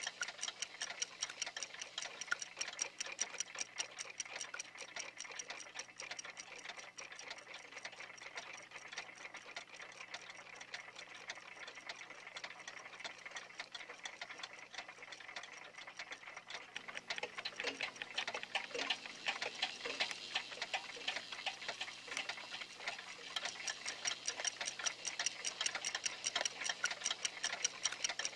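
Clock ticking in a rapid, even rhythm, over a faint steady low hum; the ticking grows louder about two-thirds of the way through.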